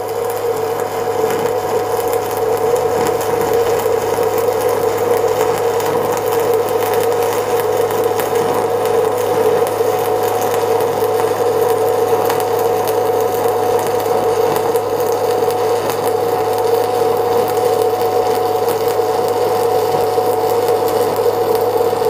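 Stick welding with a 1/8-inch E7018 low-hydrogen electrode at 110 amps: a steady, continuous arc crackle and sizzle with a steady hum under it, as a straight bead is run along the joint.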